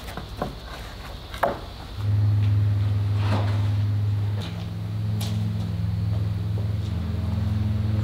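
A few wooden knocks as barnwood boards are set down, then from about two seconds in a side-by-side utility vehicle's engine idling steadily, its pitch shifting slightly partway through.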